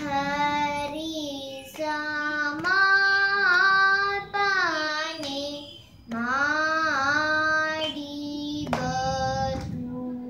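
A young girl singing a Carnatic geetham solo and unaccompanied, in long held notes that bend and slide in pitch, with short breaths between phrases. A few light hand slaps keep the tala under the singing.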